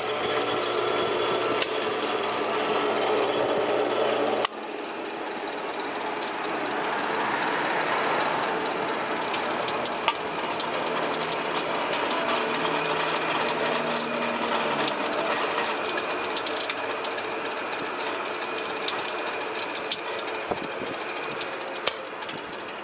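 Steady hum of the wheeled rebar cutter's electric motor, cut off abruptly about four and a half seconds in. A noisy rattling hiss with scattered sharp clicks follows.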